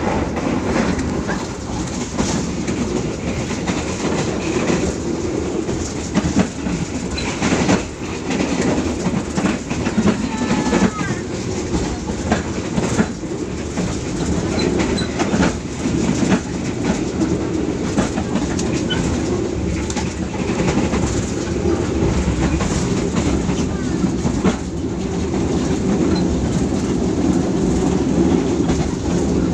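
Passenger train running along the track: a steady rumble with the clickety-clack of its wheels over the rail joints.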